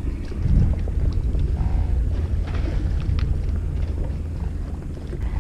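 Steady low rumble of a fishing boat's engine mixed with wind on the microphone, with a few faint clicks from hands threading bait onto a hook.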